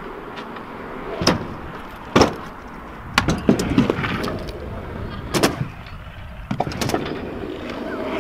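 Stunt scooter wheels rolling over tarmac and ramps, broken by sharp clacks of the deck and wheels landing and striking: one about a second in, another near two seconds, a quick run of several around three to four seconds, and more near five and a half and seven seconds.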